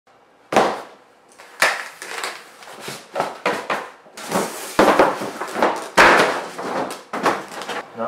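Cardboard box and styrofoam packing being handled on a stone countertop: a series of sharp knocks and thumps, with scraping and rustling of cardboard, foam and plastic between them.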